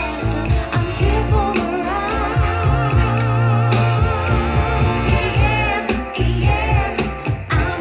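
Pop/soul song with a singer and a heavy bass line, played back through Soundcore Bluetooth speakers at test volume; one sung note is held with vibrato for a couple of seconds near the start.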